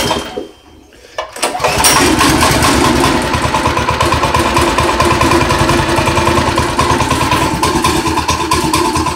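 Predator 212 single-cylinder four-stroke go-kart engine cold starting: after a brief burst it catches about a second and a half in and then runs steadily, still cold and not warmed up.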